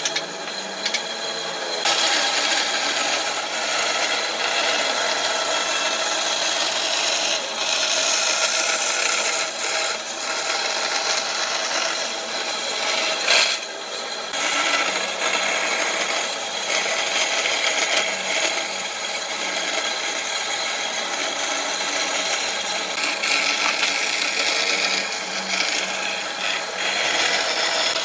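A power tool working wood, a steady rasping, abrasive noise with a motor hum under it, and one sharp knock about 13 seconds in.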